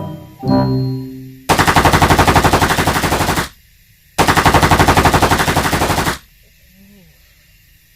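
Rapid automatic machine-gun fire in two bursts of about two seconds each, with a short pause between them, after two brief pitched tones at the start.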